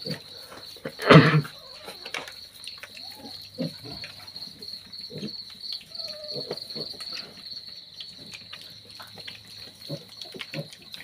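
Piglets eating mash from a plastic bowl: small chewing and snuffling clicks, with one loud short piglet squeal about a second in and a few faint grunts. Steady high cricket chirping runs underneath.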